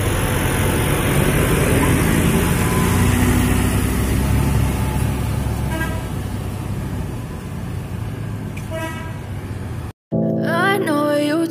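Diesel engine of a Pandawa 87 Jetbus 3+ coach running as the bus pulls away, with a vehicle horn tooting briefly twice, about six and nine seconds in. The sound cuts off abruptly near the end and music begins.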